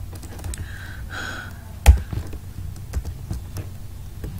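A few keystrokes on a computer keyboard: scattered faint taps and one sharp, loud key click about two seconds in.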